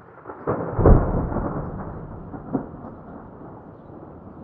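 Thunder: a sudden crack about half a second in that rolls into a rumble and slowly dies away, with a second sharp crack a little past halfway.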